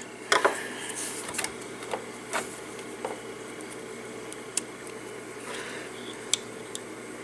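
Scattered light clicks and knocks of a small speaker driver and its wires being handled against the jukebox's open plastic housing, over a steady low background noise.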